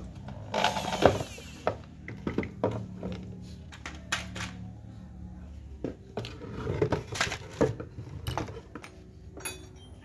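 Electric drill boring into a washing machine gearbox's worn plastic pulley: a harsh burst of drilling about half a second in, the motor humming on for a few seconds, then knocks and clinks as the drill and gearbox are set down and handled.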